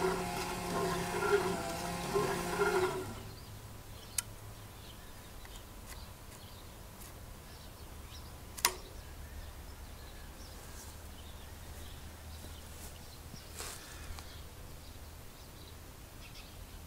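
A small electric motor on a home-built pellet burner whines with a wavering pitch and stops about three seconds in. A low steady hum carries on, with a few sharp clicks, the loudest a little past the middle, and faint bird chirps.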